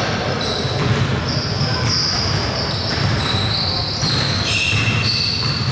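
Basketball game sounds in a gym: a ball bouncing on the court, with high squeaks coming and going.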